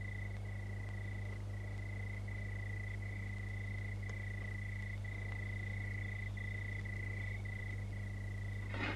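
Night chorus of trilling animals: one steady high-pitched trill with brief dips about once a second, over a low steady hum. Near the end, rustling and light knocks begin.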